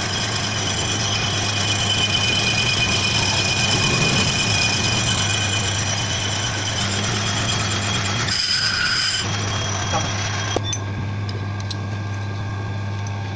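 Metal lathe running with a steady motor hum while a Toyota Mark X brake disc is turned, the cut adding a hiss and thin high ringing tones. The hum briefly drops out about eight seconds in. After about ten seconds the hiss fades, leaving the hum and a few light clicks.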